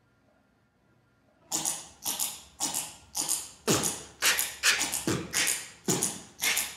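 Beatboxing: a quick, even vocal-percussion beat of kick and snare sounds, about three hits a second, starting after about a second and a half of near silence.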